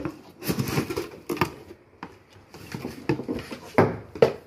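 Cardboard rustling and scraping as a plastic popcorn machine is pulled out of its box, with a few sharp plastic knocks near the end as its lid is handled.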